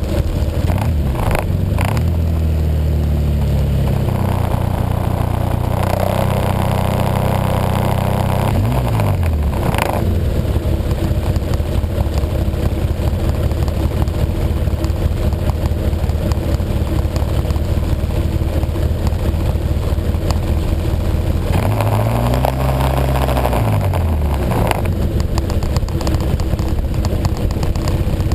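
Snowmobile engine running under way, with a steady wash of noise; the engine pitch swings up and down as the throttle is worked, once about nine seconds in and again a little past twenty seconds.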